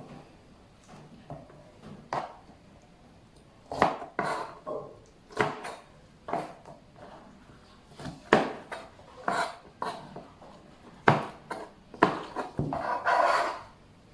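Kitchen utensils and dishes knocking and clattering in irregular separate strikes. A longer scraping sound comes near the end.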